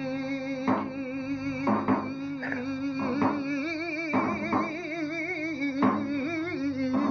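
A man singing a saeta unaccompanied, in flamenco cante jondo style: one voice holding long, wordless melismatic notes that waver and curl in pitch, broken by short breaths between phrases.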